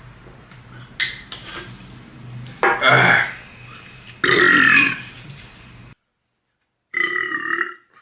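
A man burping loudly several times: long, pitched burps about three and four and a half seconds in, and another after a brief silence near the end.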